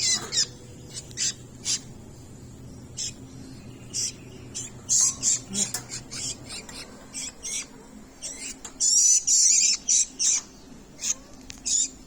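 Nestling birds giving shrill begging calls at feeding time: short high squeaks in irregular clusters, with a longer run of calls about nine seconds in.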